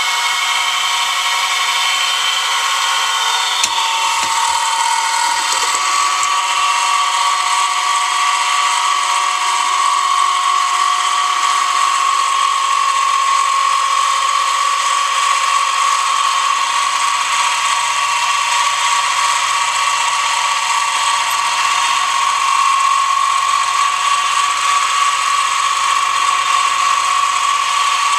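Milling machine running steadily with a high whine, its shop-made drill-rod tooth cutter cutting cog-belt teeth into a wheel blank. There is a single sharp click about four seconds in.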